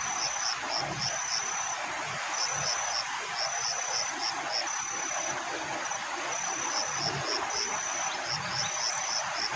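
An insect calling in a high, steady pattern: a long held trill alternating with quick runs of three or four short chirps, repeating over and over. Underneath is a steady hiss.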